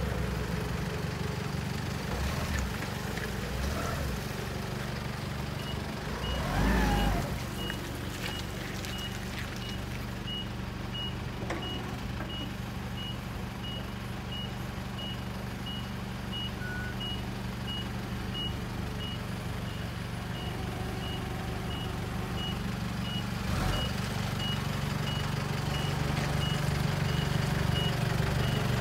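Nissan 25 forklift's engine running steadily, with its reversing alarm giving high, evenly spaced beeps, about one and a half a second, from about six seconds in. A brief rising and falling whine about seven seconds in is the loudest moment, and the engine gets louder near the end.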